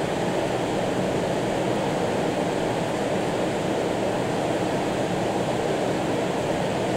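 Steady rushing of flowing water, an even 'zaa' without breaks.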